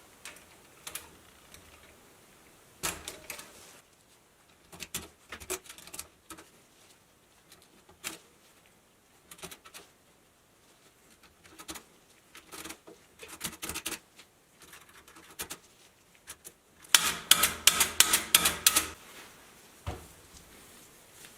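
Antique mechanical calculator being worked by hand: scattered sharp mechanical clicks and clacks of its keys and mechanism, then a fast, louder run of clattering clicks lasting about two seconds near the end.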